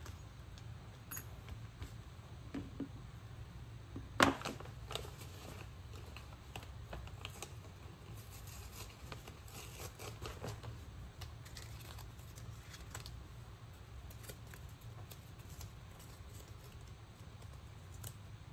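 Paper stationery handled by hand on a table: rustling pages and sticker sheets with light taps and clicks over a low steady hum. One sharp knock about four seconds in is the loudest sound.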